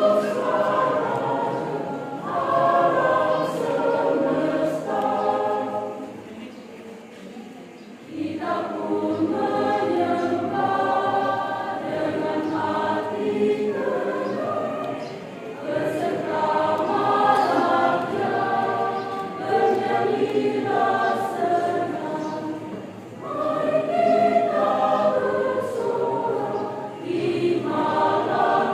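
A choir singing in phrases, dropping quieter for about two seconds around six seconds in, then coming back in full.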